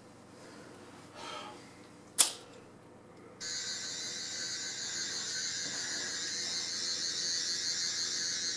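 A single sharp click about two seconds in, then a high-pitched electronic whirring tone that switches on abruptly a little after three seconds and holds steady with a slight warble. It is typical of a Doctor Who-style sonic screwdriver sound effect.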